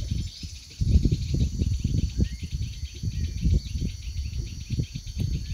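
A steady, high chorus of insects trilling, with a few short bird chirps, over irregular low thumps and rumble that are the loudest sound throughout.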